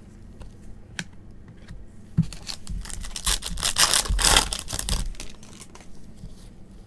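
Foil wrapper of a 2022 Panini Optic baseball card pack being torn open and crinkled by gloved hands: a dense crackling rustle from about two seconds in until about five seconds in, loudest near the middle. A few light ticks come before it.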